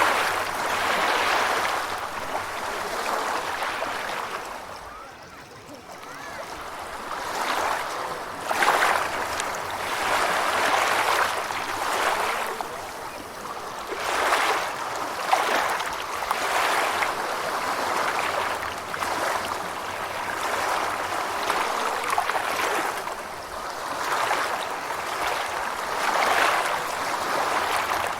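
Gentle ocean waves washing in, a continuous rush of surf that swells and ebbs every few seconds, with a short lull about five seconds in.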